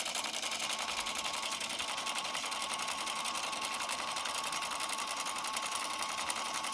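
Battery-powered toy sewing machine running steadily, its small motor and needle mechanism making a rapid, even chatter over a thin motor whine.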